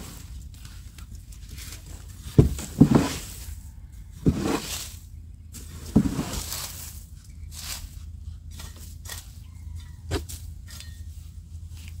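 Wood-chip mulch being scooped out of a tipped plastic wheelbarrow and dropped onto the soil: about five rustling, scraping scoops a second or two apart, most of them in the first half, over a steady low hum.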